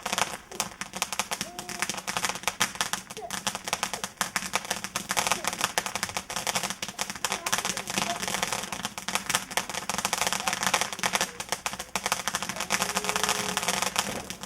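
Firework crackling: a dense, rapid stream of sharp crackles that goes on without a break, with faint voices behind.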